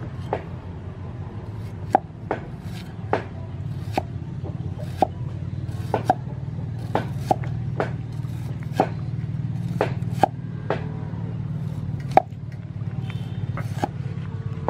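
Cleaver slicing a shallot on a round wooden chopping board: sharp knocks of the blade striking the wood, irregularly spaced at roughly one a second, over a steady low rumble.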